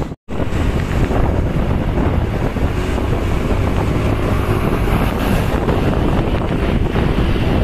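Heavy wind noise on the microphone over a steady rumble of road and engine noise. The sound cuts out for a moment right at the start.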